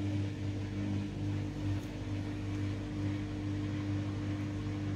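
Samsung Eco Bubble washing machine's drain pump running with a steady hum at the start of a quick-wash cycle, before the machine begins filling with water.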